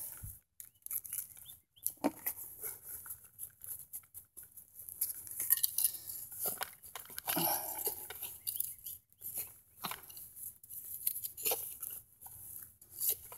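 Hand digging trowel scraping and chopping into soil, with clumps of dirt and small stones being scooped and dropped in irregular crunches and knocks.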